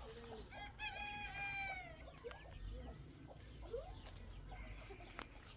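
Chickens clucking and calling, with one long drawn-out call about a second in that falls in pitch at its end, and a sharp click near the end.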